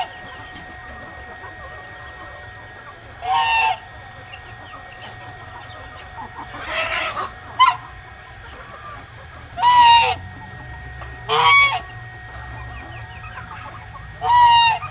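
Goose honking: four loud single honks a few seconds apart, with a rougher, noisier poultry call between them near the middle.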